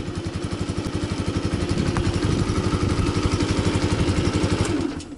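Romet ZXT 125's single-cylinder 125 cc four-stroke engine idling at a standstill with an even putter from the exhaust. It gets a little louder over the first couple of seconds, then cuts off abruptly near the end.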